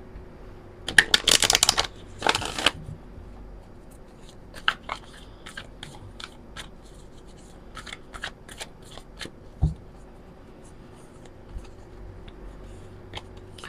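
A deck of oracle cards being shuffled by hand: a dense flurry of card flutter and slaps about a second in, then scattered softer card slides and taps that thin out over the following seconds.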